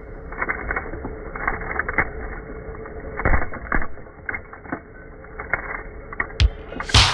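Small twin-shaft shredder's rotating cutters crunching through a toy vehicle: irregular cracks and snaps over the steady hum of the running machine.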